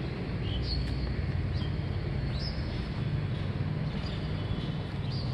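Outdoor ambience: a steady low rumble, with a bird giving short, falling high chirps about once a second.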